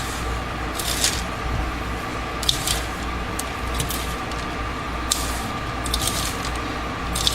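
Dry bath bomb mix of baking soda and citric acid being stirred in a bowl, short rustling scrapes about once a second, over the steady hum of a fan.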